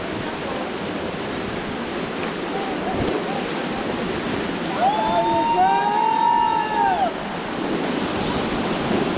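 Rushing whitewater of a river rapid, with wind on the microphone. About five seconds in, a long whooping shout from rafters rises, holds for about two seconds and falls away.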